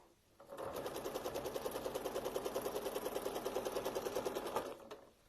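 Domestic sewing machine stitching at an even pace, a quick regular rhythm of about ten stitches a second. It starts about half a second in and stops near the end.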